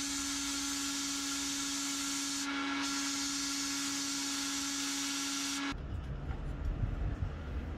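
Abrasive blast cabinet blasting a rusty iron knife part: a loud, even hiss of the air and grit with a steady hum under it. It cuts off abruptly about three-quarters of the way through, leaving a lower, uneven rumble.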